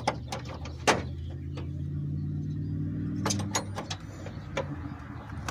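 A low, steady engine hum that swells and fades over a few seconds, with a handful of sharp clicks and taps, the loudest about a second in.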